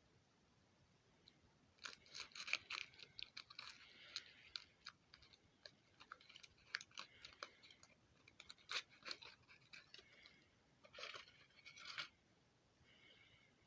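Kinder Surprise egg's foil wrapper crinkling and crackling as it is handled: quick, irregular crackles close by, starting about two seconds in and stopping a little before the end.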